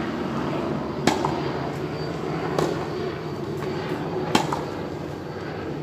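Tennis balls struck by rackets and bouncing on a hard court during a rally: sharp pops roughly every one and a half seconds, the loudest about four seconds in, over a steady background hum.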